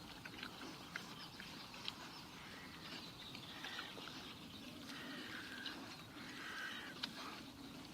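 Faint pig-pen sound: pigs grunting and squealing, with scattered small clicks and chirps.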